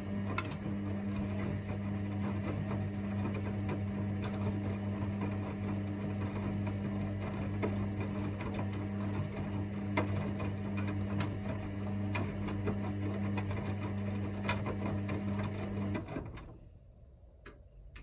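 Hoover DynamicNext front-loading washing machine spinning its drum at a steady speed during the main wash: a steady motor hum with scattered clicks. The motor cuts out about 16 seconds in, and the drum goes much quieter as it slows.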